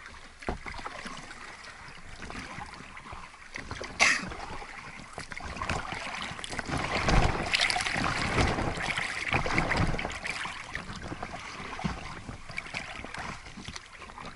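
Water splashing and sloshing as a small boat is paddled away from the bank, picking up speed, with wind rumbling on the microphone. The splashing grows loudest midway, and there is one sharp knock about four seconds in.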